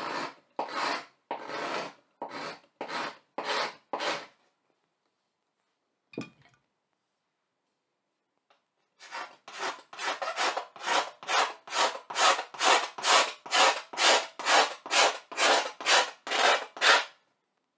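Hand carving tool scraping lines into a blackboard in quick repeated strokes. About seven strokes come in the first four seconds. After a pause, a faster run of about twenty strokes follows, louder toward the end.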